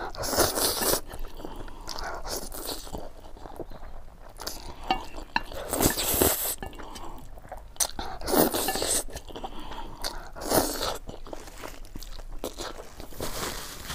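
Close-miked eating sounds of a person hurriedly eating spicy instant noodles and boiled eggs: chewing and biting, with several louder noisy bursts at irregular intervals.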